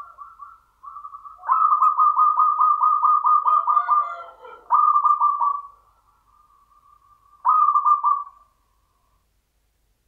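Zebra dove (perkutut) cooing: several phrases of quick, evenly repeated coo notes, the longest running about three seconds.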